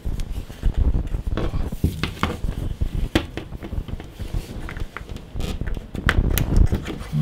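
Ethernet cables being handled and pulled, with irregular small clicks, knocks and rustling over a low rumble.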